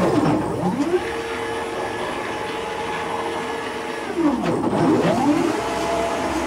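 A CNC router's 1600 oz-in stepper motors driving the axes through a warm-up cycle, making a steady whine. Twice the whine drops in pitch and climbs back up as the axes slow, reverse and speed up again.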